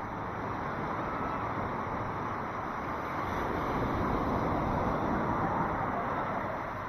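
Sea waves washing onto a beach, a rushing surge that slowly swells and eases off toward the end.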